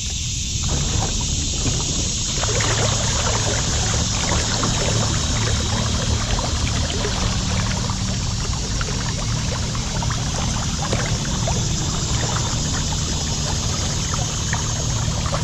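Water splashing and trickling close around a kayak, a steady crackling wash of moving water that swells about a second in.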